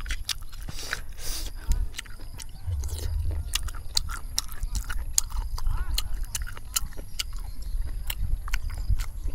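Close-miked eating of stir-fried snails: chewing and biting sounds, with many sharp clicks of snail shells knocking against each other and against the metal pan as they are picked out by hand.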